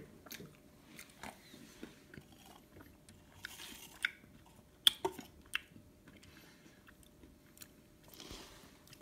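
A person eating close to the microphone, chewing and crunching, with soft crackles throughout and a few sharper clicks in the middle.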